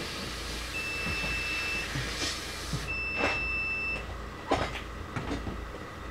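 An electronic beeper sounding two long, steady, high beeps, each about a second long with a second's gap, over a steady hiss and hum. The hiss drops away about three seconds in, and a few light knocks follow.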